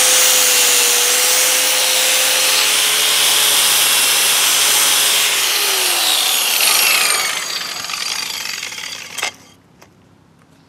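Corded angle grinder with a wire wheel running against a chrome hydraulic cylinder rod, scrubbing rust and dirt out of old score marks down to bare metal. It runs steadily, then dies away from about seven seconds in, with a single knock near the end.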